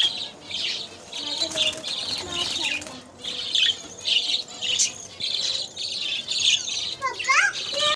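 Small parrots, budgerigars, chirping and chattering in quick, overlapping calls, with a few rising whistled calls about seven seconds in.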